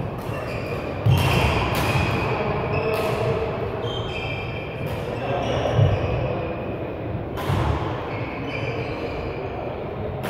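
Badminton play in a sports hall: sharp racket strikes on a shuttlecock a few seconds apart, short squeaks of court shoes on the sprung floor and thudding footsteps, all with the echo of a large hall.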